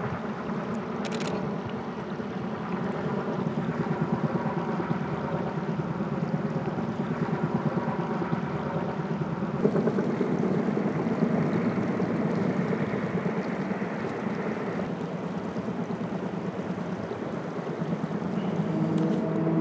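Kaman K-MAX K-1200 intermeshing-rotor helicopter flying: the fast, even beating of its two intermeshing rotors over the sound of its turbine engine. The sound shifts about halfway through, and a steady hum comes in near the end.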